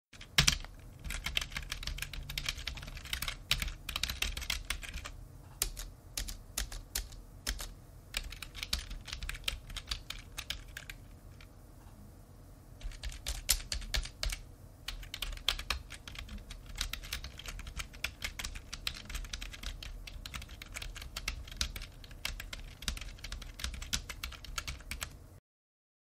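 Typing on a generic office computer keyboard: rapid, continuous key clicks that thin to scattered strokes with a brief pause in the middle, then run fast again until they stop near the end.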